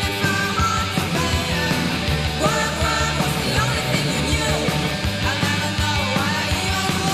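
Late-1980s noise pop record playing: loud electric guitar band with drums keeping a steady driving beat.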